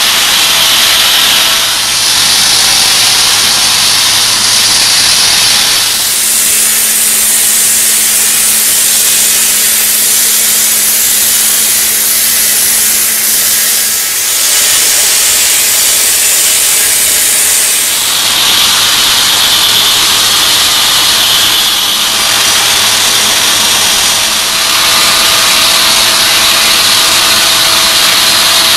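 Excavator-mounted diamond wheel saw cutting concrete under water spray: a loud, steady hissing grind over the hum of the machine's engine. The sound changes abruptly several times.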